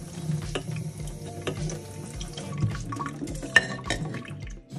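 Tap water running and splashing over a water bottle held under the faucet in a stainless steel sink, with background music that has a steady beat underneath.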